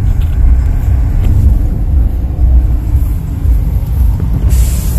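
Porsche Macan driving, heard from inside the cabin: a steady low rumble, with a high hiss coming in near the end.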